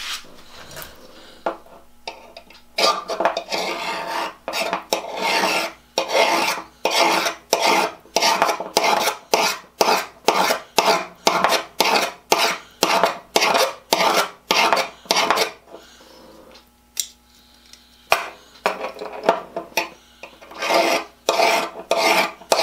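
Flat hand file scraping along the edge of a dull pair of steel shears to sharpen them, in quick, regular strokes of about two or three a second. The strokes stop for a couple of seconds past the middle, then resume.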